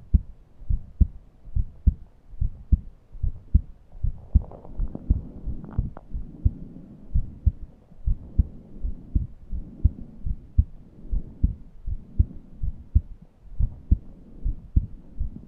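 A person's heartbeat, a steady train of low thumps in paired beats, with laboured, wheezy breaths coming in over it, the strongest breath about four to six seconds in. The breathing is strained: too tight to draw a deep breath.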